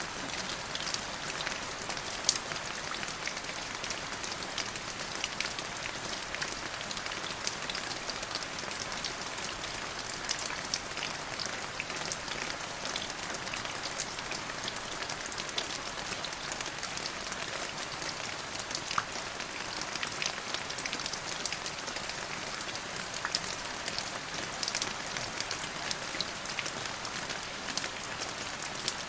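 Steady rain falling, with many individual drops ticking sharply on a hard surface.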